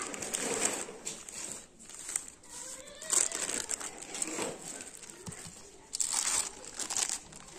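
A sheet of baking paper crinkling and rustling in irregular bursts as gloved hands roll it around a minced-meat log and fold it over. The loudest crinkles come about 3 s in and again around 6 s in.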